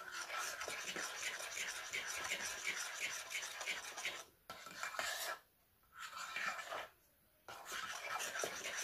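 Silicone spatula stirring and scraping thick whipped double cream in a glass mixing bowl, the blade rubbing against the glass in quick repeated strokes. It stops briefly three times in the second half.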